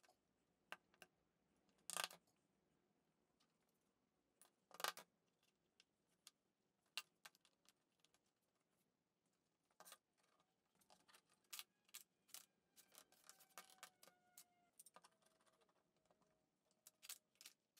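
Sparse light clicks and knocks of wooden frame parts being fitted together during a glue-up, with two sharper knocks about two and five seconds in. From about ten seconds a quicker run of clicks as bar clamps are set and tightened on the frame.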